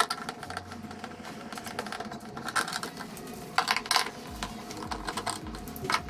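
Screwdriver prying open the plastic cabinet panel of a twin-tub washing machine: irregular plastic clicks and snaps as the clips and seam give, with a louder cluster in the middle.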